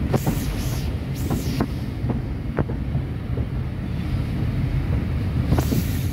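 Heritage railway carriage running along the line, heard from an open window: a steady low rumble with irregular clicks of the wheels on the rails. Wind buffets the microphone, with a few short hissy gusts near the start and again near the end.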